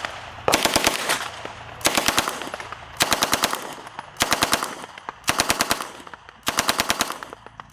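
A machine gun firing six short bursts of fully automatic fire, about one burst a second, each burst a quick string of shots with a fading echo after it.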